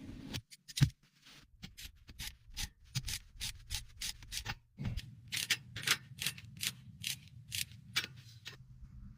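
Repeated short rubbing strokes on a surface, sparse at first, then quickening to about two to three a second about halfway through, over a low steady hum.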